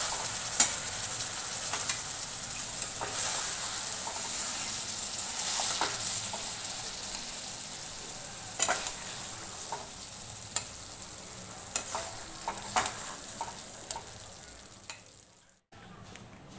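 Kofta curry sizzling in a hot wok, the steady hiss slowly fading; the oil has separated from the gravy, the sign that the curry is done. A flat spatula knocks sharply against the pan and plate several times as the koftas are lifted out.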